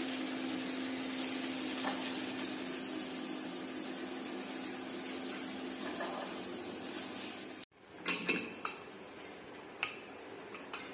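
A steady hiss with a low hum that cuts off suddenly about three-quarters of the way through, followed by a few light clinks of steel kitchen utensils being handled.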